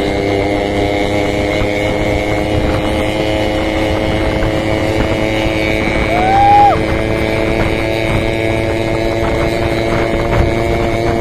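Motorcycle engines running steadily at cruising speed while riding in a group. About six seconds in comes a short, loud tone that rises and then holds.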